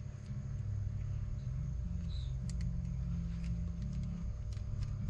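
Steady low rumble with a few faint, light clicks over it, mostly in the second half, as small brake pad parts are handled.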